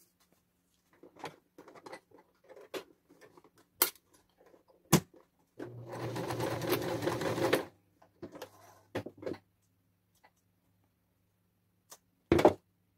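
A domestic sewing machine stitching for about two seconds, a short run of stitches to fix the end of an elastic in its casing. Around it come scattered sharp clicks and knocks, the loudest near the end.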